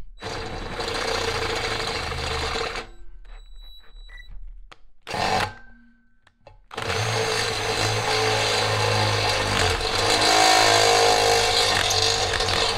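DeWalt 18V cordless drill with a step drill bit cutting through a chrome bar, taking a pilot hole out step by step to 3/4 inch. It runs for about three seconds and stops, gives a short burst about five seconds in, then runs steadily from about seven seconds in.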